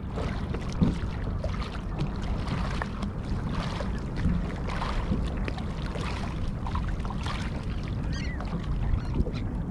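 Small waves splashing and lapping against a kayak's hull, a continuous run of irregular splashes.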